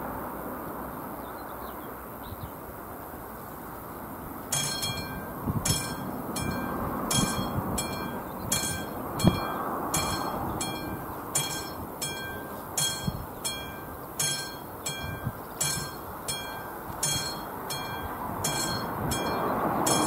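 Classic electromechanical level-crossing warning bell starts ringing about four and a half seconds in, struck in a quick, slightly uneven rhythm of about two strokes a second over a steady background rush. It is the crossing's warning that a train is approaching.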